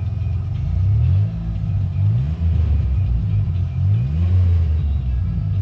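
1990 Dodge Grand Caravan's 3.3-litre V6 idling, then revved up and back down several times, heard from inside the cab. The van has no muffler fitted, so the exhaust is loud.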